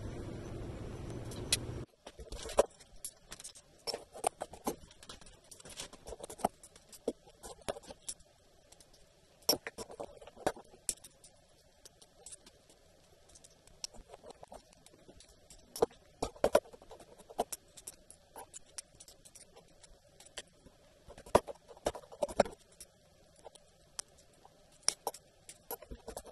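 Pliers nibbling the edges of white sheet-glass strips: irregular sharp clicks and small cracks of glass chipping off. A steady hiss cuts off about two seconds in.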